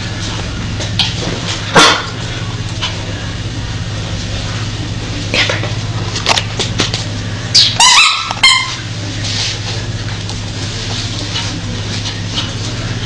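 Small dog giving a quick run of high barks, about three in a second, some eight seconds in, over a steady low hum. A single sharp click or knock sounds near two seconds in.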